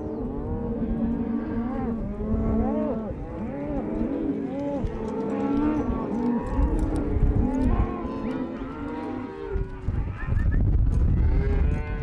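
A herd of cattle mooing, many calls overlapping one another. About ten seconds in, a low rumble takes over.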